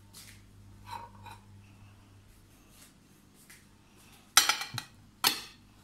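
Crockery knocking and clinking as plates and dishes are handled and set down on a table: a cluster of sharp knocks about four and a half seconds in and another a little under a second later.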